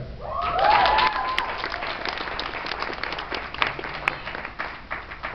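Audience clapping, loudest about a second in and tapering off near the end, with a short cheer rising and falling near the start.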